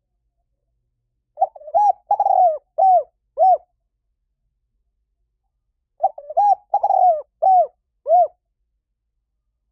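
Spotted dove cooing: two phrases of about five coos each, a few seconds apart, with nothing else heard between them.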